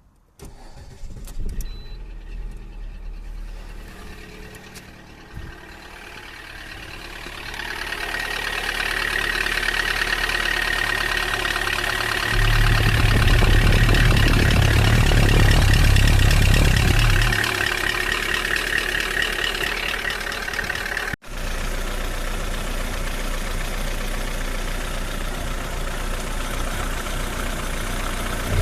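Car engine starting and running with a knock, which the owner puts down to a frozen oil pickup. It runs louder for several seconds around the middle, then settles to a steady run.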